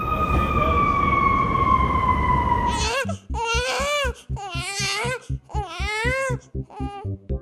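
Electronic music intro: a held tone slowly falling in pitch over a low rumble, then quick wavering, swooping pitched sounds over a steady low beat from about three seconds in.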